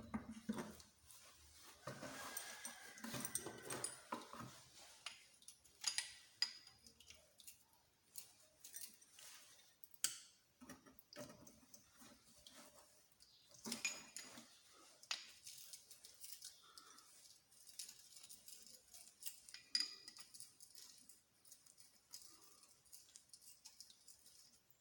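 Tools and small metal engine parts clicking and clinking against each other in irregular, scattered knocks, a few with a short metallic ring, as a small motorcycle engine is worked apart.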